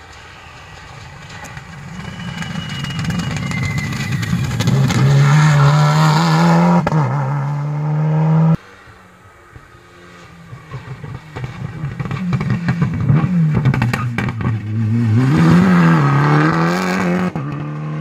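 Rally cars at speed on a closed special stage. A car's engine grows louder as it approaches, its pitch climbing and dropping at gear changes, then cuts off abruptly about halfway through. A second car then approaches the same way, revving up and down through its gears.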